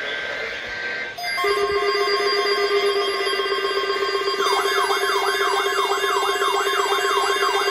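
Layered electronic alarm tones. A low buzzing tone and several steady higher tones start suddenly about a second in. A rapid siren-like yelp, sweeping up and down about three times a second, joins about halfway through.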